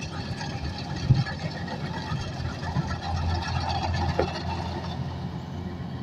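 Kubota DC105X combine harvester running steadily, its diesel engine and threshing machinery humming, with a single sharp knock about a second in.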